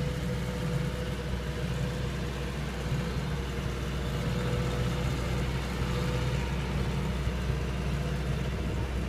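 Tracked combine harvester's diesel engine running steadily as the machine crawls along, a constant low drone with a steady whine above it.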